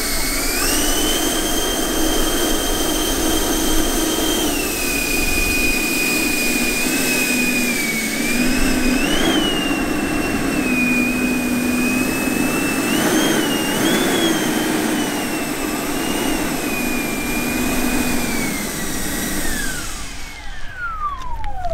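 Twin electric ducted fans of a large RC airliner model running with a high whine, the pitch stepping up and down as the throttle changes. Near the end they spool down with a long falling whine.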